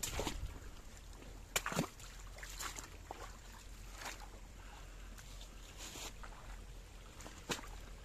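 Footsteps crunching in snow: a string of uneven steps, the loudest pair about a second and a half in and another near the end.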